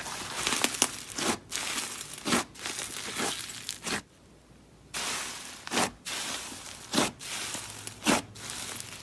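Slime mixed with clay being squished, stretched and pulled by hand: sticky crackling and tearing noises with louder pops roughly once a second, and a short pause about four seconds in.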